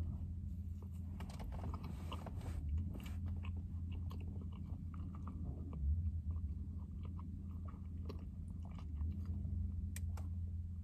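A person chewing a mouthful of soft iced banana cake with pecans, with faint scattered mouth clicks and small crunches. A steady low hum runs underneath.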